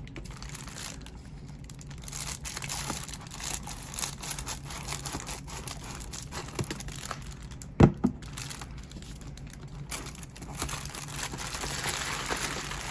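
Plastic bubble mailer crinkling and rustling as it is handled and cut open with scissors, with a loud double thump about eight seconds in.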